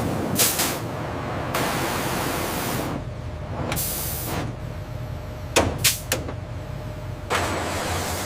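Factory machinery: a steady low hum with several bursts of hissing air and a few sharp clicks and knocks.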